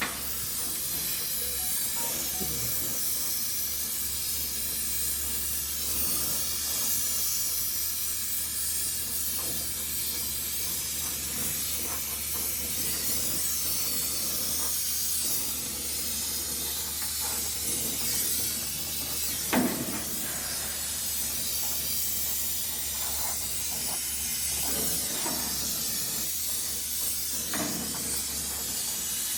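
Oxy-fuel torch flame hissing steadily while brazing a copper pipe elbow. A single sharp knock sounds about two-thirds of the way through.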